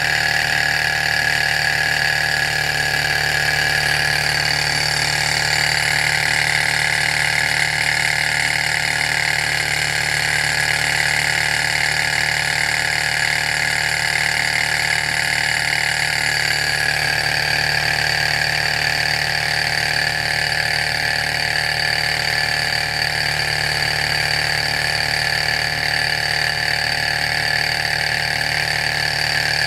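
Sunnytech model Stirling engine running steadily on its alcohol lamp, the flywheel and pistons whirring with a constant whine, while it belt-drives a small motor used as a generator.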